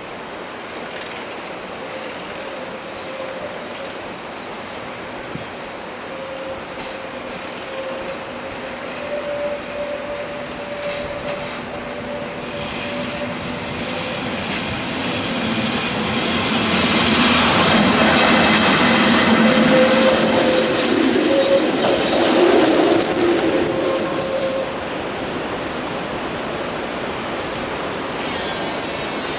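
Metre-gauge electric passenger train, an HGe 4/4 II locomotive with its coaches, running past on a curve. Its wheels give off thin high squeals over the rolling rail noise. The sound builds to its loudest about two-thirds of the way in as the train passes close, then drops back.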